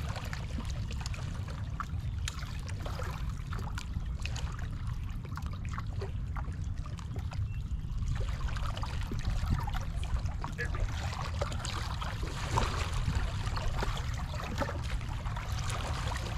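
Small waves lapping and trickling against the rocks of a riprap shoreline, with a steady low rumble underneath.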